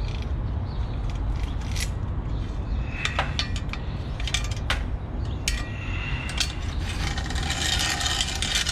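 A cut bicycle chain being pulled off a mountain bike's drivetrain: metal links clicking against the sprockets and derailleur, then rattling and scraping together near the end, over a steady low rumble.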